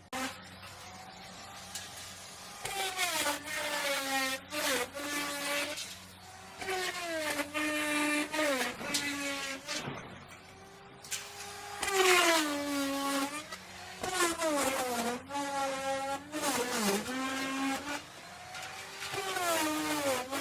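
Electric wood router running and cutting wood in repeated passes. Its whine falls in pitch at each pass, then evens out, about six times.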